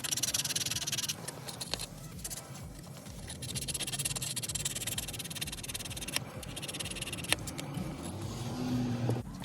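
Hand ratchet wrench clicking rapidly as bolts are turned, in several spells of fast ratcheting with short pauses between them.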